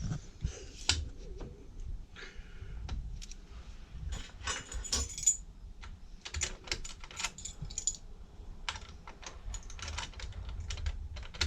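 Irregular light clicks and rattles of small metal hardware and hand tools being handled, with no drill or motor running.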